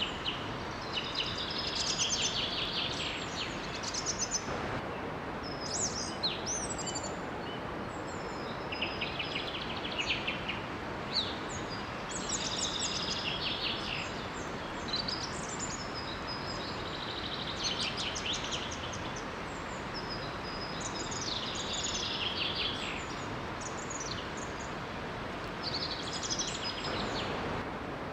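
Several songbirds singing and calling in short, high trills and chirps, over the steady rush of a small forest waterfall.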